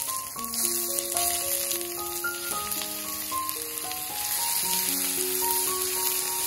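Food sizzling in hot oil in a frying pan, a steady hiss, with background music of slow, held melody notes playing over it.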